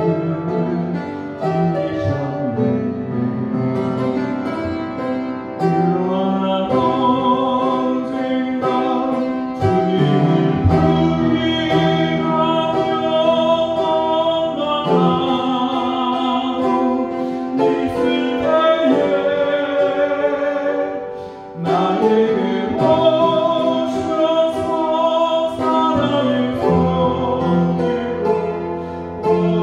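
A man singing a praise song while accompanying himself on an upright piano. There is a brief break in the sound about two-thirds of the way through.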